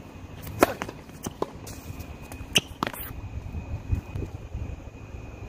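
Tennis serve: the racket strikes the ball with a sharp crack about half a second in. A short rally of further ball hits and bounces on a hard court follows, about six more sharp pops spread over the next few seconds.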